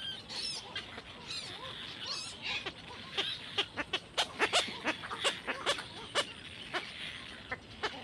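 Black-crowned night herons at the nest giving short, harsh calls in an irregular run, densest in the second half. A small bird twitters high-pitched twice, about half a second and two seconds in.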